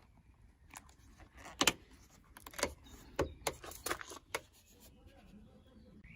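Irregular clicks and scraping rustles from a dashcam power cable being pushed and tucked behind a car's rubber door seal and trim, busiest in the middle and quieter near the end.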